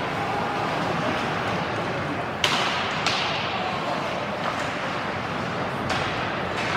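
Two sharp cracks from ice hockey play, about two and a half and three seconds in, the first the louder, each ringing on briefly in the rink's echo. A few fainter knocks follow over steady arena noise.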